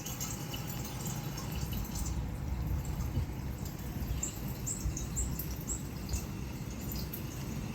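A handful of short, high bird chirps in quick succession about four to six seconds in, coming from a bird video playing on a TV, over a low steady rumble.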